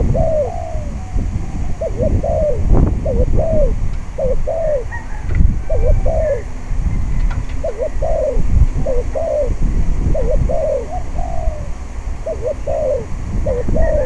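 Spotted dove cooing over and over, a short phrase of falling coos about once a second. Wind buffets the microphone underneath in heavy, uneven low rumbles.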